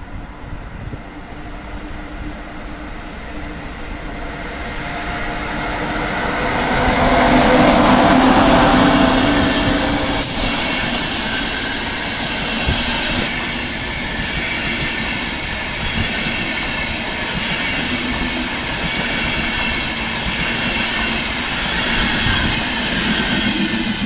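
Deutsche Bahn Intercity train, an electric locomotive hauling a long rake of coaches, approaching and running past close by. The rumble of wheels on rail builds to its loudest about eight seconds in, then stays steady as the coaches roll by, with a single sharp click just after ten seconds.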